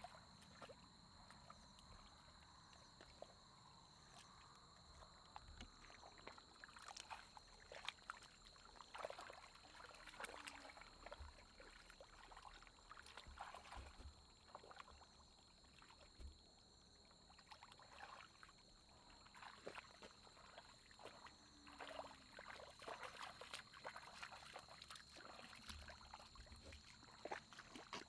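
Faint splashing and sloshing of shallow muddy water as hands and feet move through it, in irregular bursts, while groping in the mud for fish.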